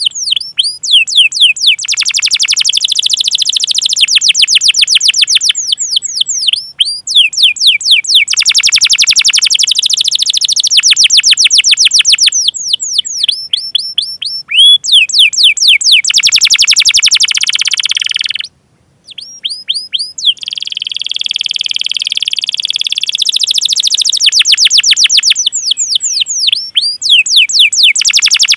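Domestic canary singing a long, loud, unbroken song of rapid downward-sweeping 'cuit cuit' chirps run together into fast rolling trills. There is one short pause about eighteen seconds in.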